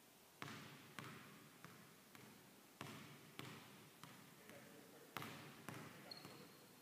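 A basketball being dribbled on a hardwood gym floor: sharp bounces with an echoing tail, about two a second at an uneven pace. A short high squeak near the end.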